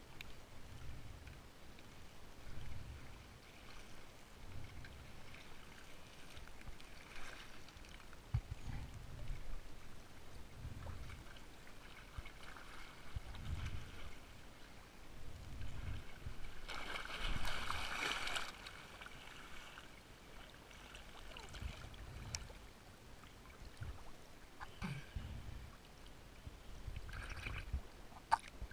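Lake water gently sloshing and lapping around someone moving through it, with soft low thumps every second or two and a brief louder splash about two-thirds of the way through.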